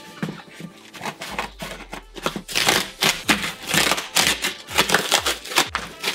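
Cardboard shipping box being torn open by hand: packing tape and cardboard flaps ripping and crackling, much busier and louder from about two and a half seconds in.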